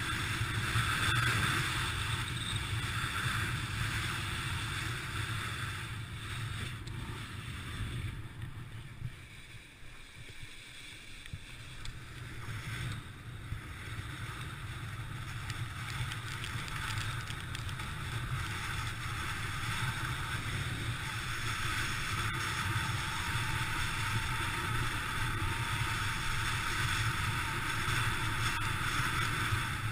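Kite buggy running fast over wet sand: a steady rush of wind on the microphone with the rumble and hiss of the wheels on the wet beach. It eases off about ten seconds in, then builds again.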